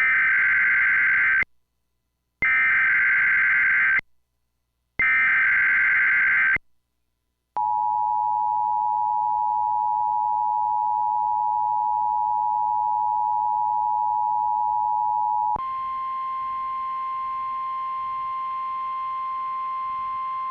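Emergency Alert System SAME header data: three identical bursts of warbling digital tones, each about a second and a half long with a one-second gap, encoding the Tornado Watch alert. Then the steady two-tone EAS attention signal for about eight seconds, switching about fifteen seconds in to the single steady 1050 Hz NOAA Weather Radio alert tone, a little quieter.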